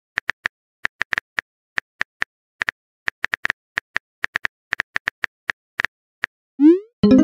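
Simulated phone-keyboard typing clicks, short sharp taps at about five a second and unevenly spaced, one per letter typed. Near the end, a short rising swoop: the message-sent sound.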